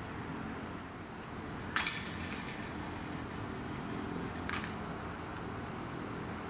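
A disc hitting the chains of a disc golf basket: a sudden metallic crash about two seconds in that rings and jingles for about a second, then a fainter clink a couple of seconds later.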